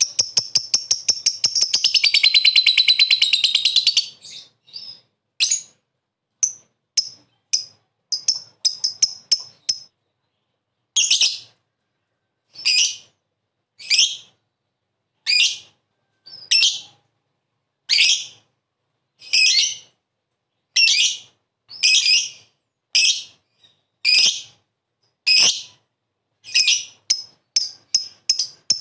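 Lovebird giving a rapid chattering trill (ngekek) for about four seconds, then a series of sharp, high single calls: short chirps at first, then longer calls about once every second and a half.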